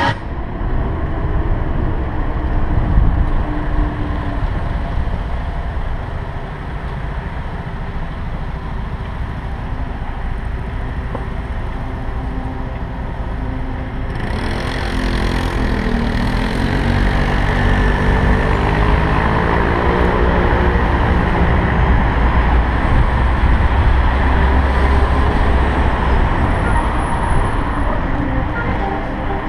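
Road traffic heard from a moving bicycle, with heavy wind rumble on the action camera's microphone. From about halfway, an engine drone slowly rises and falls in pitch as vehicles pass.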